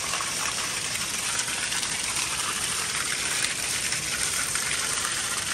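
Steady gush of water pouring from a wall pipe and splashing onto a tiled pool floor and over a person's head as she rinses under the stream.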